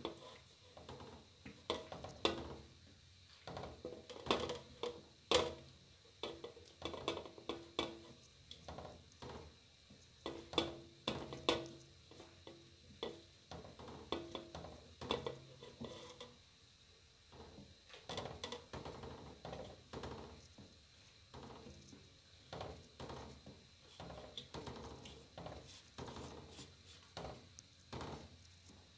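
Small dough balls being dropped one by one into coconut milk in a stainless steel pan and stirred with a wooden spatula: irregular light knocks and clinks against the metal.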